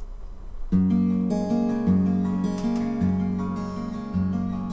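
Acoustic guitar fingerpicked, coming in about a second in: low bass notes with higher notes picked over them and left to ring.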